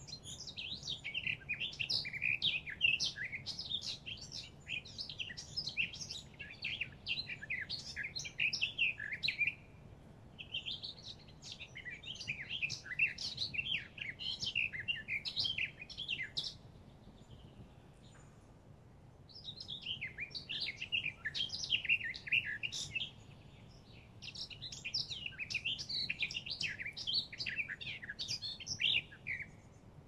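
A songbird singing long bouts of rapid twittering, warbling notes, each bout several seconds long, with short pauses between bouts.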